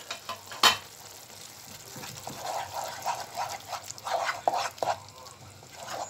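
Wooden spatula stirring thick tomato sauce with a lump of tomato paste in a non-stick pan, in irregular strokes. A sharp knock comes less than a second in.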